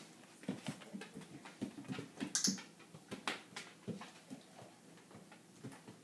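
Golden retriever moving about on a hard floor, its claws making irregular light clicks and scuffs, with small knocks as it noses into a wooden crate and pulls something out.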